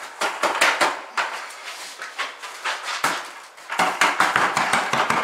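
Mortar being tipped and scraped out of a plastic 5-gallon bucket onto a shower floor: an irregular run of scrapes, knocks and thuds as the bucket is tilted and emptied by hand.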